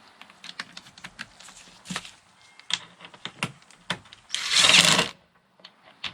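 Irregular small clicks and taps of hand-fitting tailgate latch parts and tools, then one loud, short rasping burst about four and a half seconds in.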